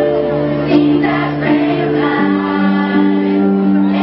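Choir of girls and young women singing sustained chords, accompanied on an electric keyboard; the chord changes about two seconds in.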